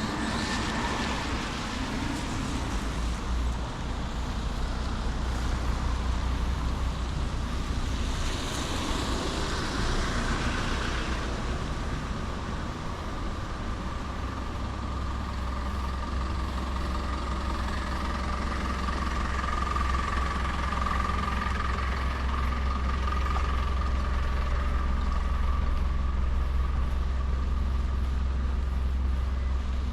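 Riding noise on wet roads: steady wind rumble on the microphone with road and tyre noise, a swell of hiss about a third of the way in, and a faint steady whine through the middle.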